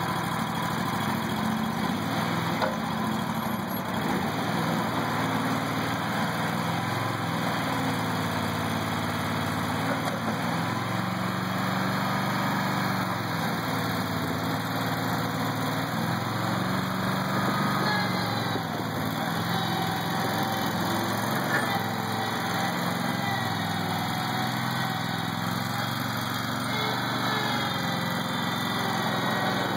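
Engine of a 2003 Terramite backhoe running steadily, its note shifting a little now and then.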